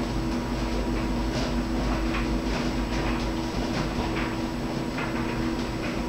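Clothes dryer running: a steady motor hum and low rumble, with irregular soft thumps as the laundry tumbles in the turning drum.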